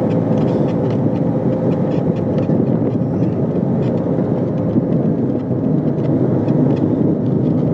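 Suzuki Bolan van's engine running with road noise as it drives downhill, steady throughout, with many small rattles and clicks.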